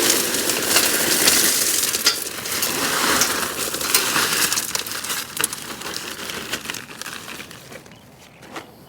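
Marble-chip gravel pouring out of a bag into a hole: a dense rattle of small stones that fades away over the last few seconds, with a single knock near the end.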